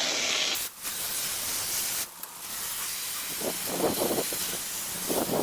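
Garden hose with no sprayer head spraying water into the truck's packed radiator and cooler fins to wash out the debris: a steady hissing spray that drops out briefly twice, with louder splashing patches later on.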